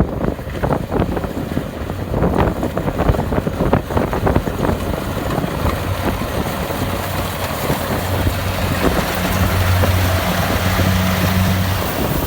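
Kubota DC-70 Plus combine harvester running, its diesel engine giving a steady low drone under a dense crackling rattle, the crackling thickest in the first few seconds.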